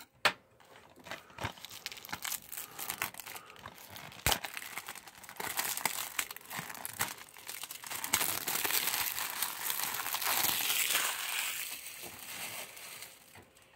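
Plastic shrink-wrap being torn and peeled off a DVD case. It crackles in scattered bits at first, then crinkles steadily for the last several seconds.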